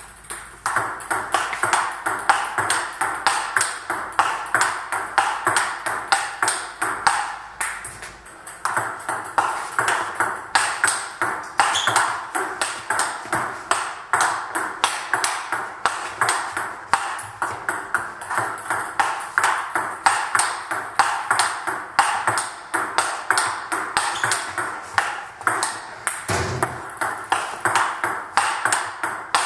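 Table tennis rally: the celluloid-type ball clicking off the rubber paddles and bouncing on the table in a quick, steady rhythm, several hits a second.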